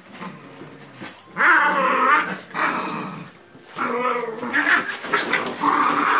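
Beauceron puppies, about 40 days old, growling at each other while play-fighting, in repeated loud bursts of about a second each.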